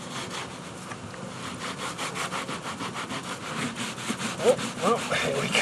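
A scrub sponge rubbed rapidly back and forth over a cooler's surface, a rhythmic rasping of several strokes a second, scrubbing dried paint off with stain remover.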